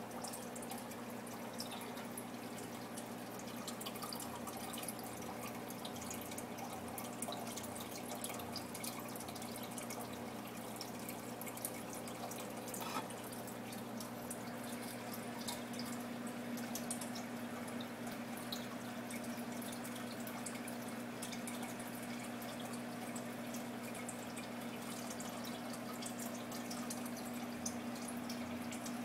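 Aquarium filter running: a steady low hum under continuous trickling and dripping water, with scattered small ticks.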